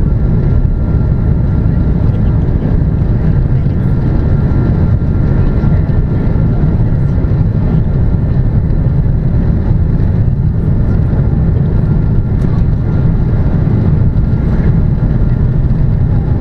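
Loud, steady rumble of an Airbus A330-200's jet engines and rushing air heard inside the passenger cabin, with a faint steady whine above it.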